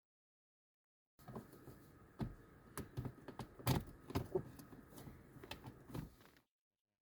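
A string of irregular clicks and light knocks over a low rustle, starting about a second in and cutting off suddenly near the end.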